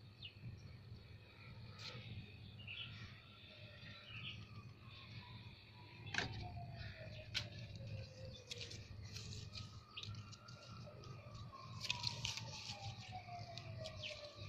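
Quiet outdoor background: a faint tone slides slowly down in pitch, twice, the second time starting a little higher. A few short bird chirps come early on the high side, and two sharp clicks come near the middle.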